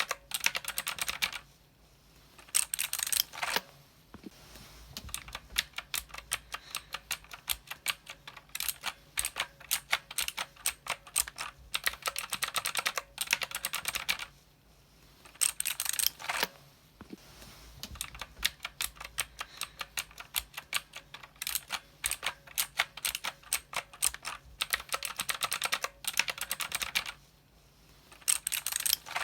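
Mechanical keyboard being typed on: fast runs of sharp key clicks, several a second, broken by brief pauses.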